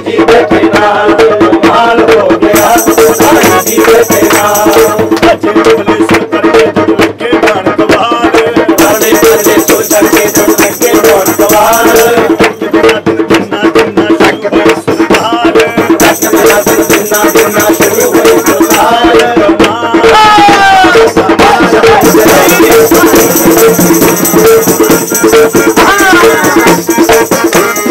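A group singing a Sai Baba bhajan to fast, steady hand clapping, over a held drone tone.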